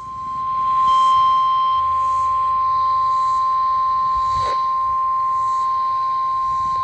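NOAA Weather Radio 1050 Hz warning alarm tone: one steady, high, unbroken tone over faint radio hiss, with a short crackle of static about four and a half seconds in. The tone signals that a warning broadcast follows.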